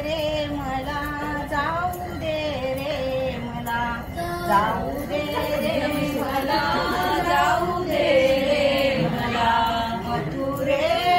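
Women singing a traditional Marathi grinding-mill song (jatyavarchi ovi), a slow melody with long held notes, sung while the hand stone quern is turned.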